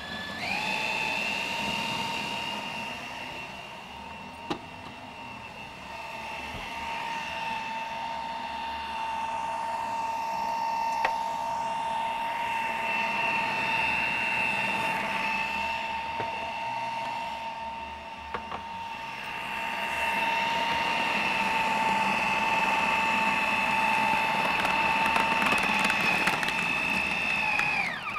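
Countertop food processor motor running at a steady high whine, grinding the kibbeh mixture so it comes out very smooth. It spins up at the start, runs louder in its last third, and winds down when switched off at the end.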